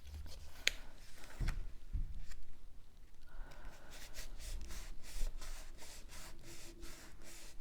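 Cardstock being handled, folded and pressed together by hand: light rubbing and scattered paper ticks, a sharper tick just under a second in, and a quick run of small ticks in the second half.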